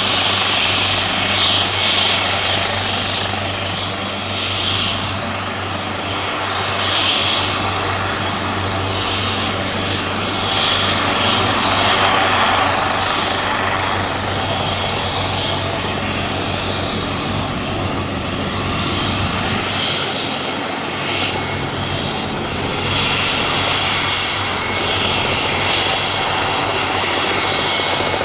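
Turbine helicopter running close by: a steady low rotor hum under a high turbine whine that swells and fades every second or two.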